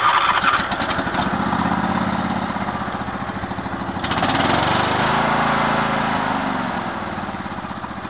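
Riding lawn mower's engine running just after starting, the hood off. About four seconds in it gets louder and its pitch shifts up, then it slowly eases back down.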